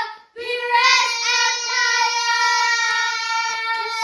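A child singing: after a brief breath, one long high note held steady for over three seconds.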